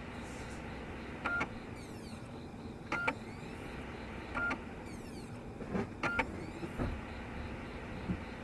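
Sony BDZ-AT770T Blu-ray recorder's disc drive making abnormal noise with a blank BD-R inside: short high buzzing chirps about every one and a half seconds, some doubled, over a steady low hum. A fault in the drive's disc-recognition operation, as the owner suspects, since the disc formats normally afterwards.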